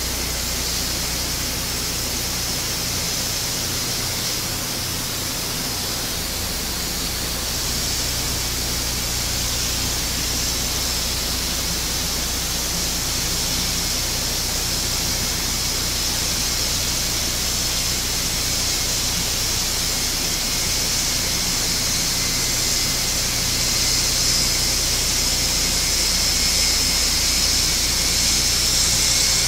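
Four TP400-D6 turboprop engines of an Airbus A400M running on the ground with their propellers turning: a steady, loud hissing whine over a low propeller drone, growing a little louder in the last few seconds as the aircraft begins to taxi.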